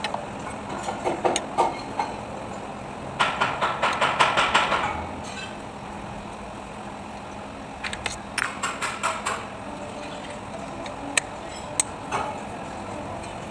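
Metal clicking from hand tools in two quick runs of about five clicks a second, then two single sharp clicks near the end.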